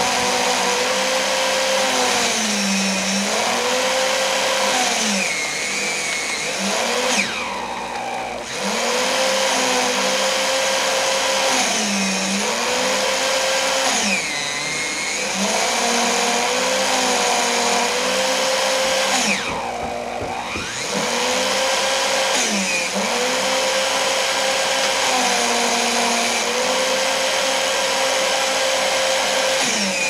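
Electric paper shredder running and cutting paper. Its motor pitch sags and recovers every two to three seconds, as a motor does when load comes on and off. Twice the hiss thins out and the sound drops a little for about a second.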